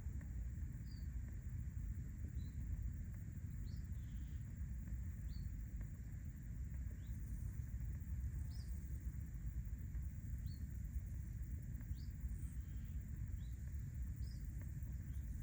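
Wind rumbling on the microphone in an open meadow, with a small bird giving short, high chirps about once a second throughout. A faint steady high hum of insects sits underneath.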